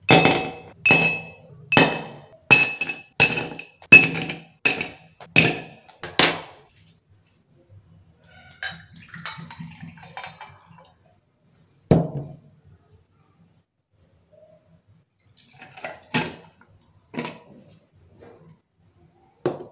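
Ice cubes dropped one at a time from tongs into an empty drinking glass, clinking and ringing about nine times over the first six seconds. Then liquor is poured from a bottle into a shot glass, a faint trickle, followed by a single knock and a few more clinks of glass and ice.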